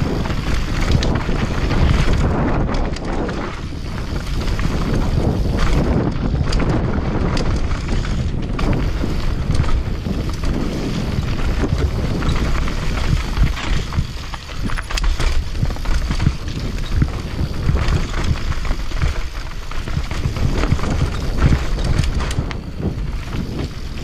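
Commencal mountain bike descending a trail at speed, tyres rumbling over dirt and rock with frequent knocks and rattles from the bike, and wind buffeting the helmet or chest-mounted camera's microphone.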